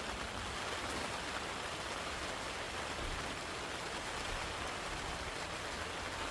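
Steady rain falling, an even hiss with no distinct drops or changes.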